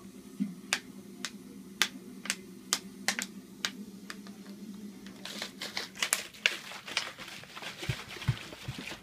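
Thin plastic water bottle crinkling and clicking as a toddler squeezes and handles it: scattered sharp crackles, then a denser run of crinkling, with a few dull thumps near the end. A faint low hum runs underneath.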